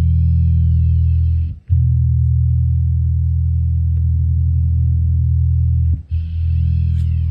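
Electric bass guitar played through a Roland CB-30 bass amplifier: three long, held low notes, the first breaking off after about a second and a half, the second held about four seconds.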